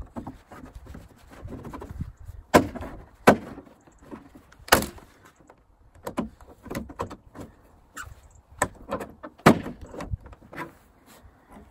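A stock plastic bonnet scoop being prised off a Mini Cooper S's bonnet with a plastic trim removal tool: a run of about ten sharp clicks and snaps as its plastic clips pop loose, the loudest about five seconds in, with light scraping of the tool between them.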